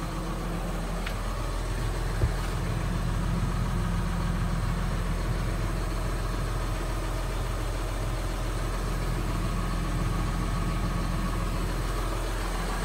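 John Deere 6930 Premium tractor's six-cylinder diesel engine idling steadily, heard from inside the cab, with a single sharp click about two seconds in.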